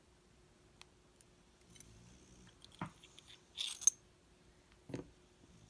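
Small metal lock parts clicking and clinking as a pin-tumbler lock is taken apart. There are a few light ticks, then a sharp knock, a brief metallic rattle just before four seconds that is the loudest sound, and another knock about five seconds in.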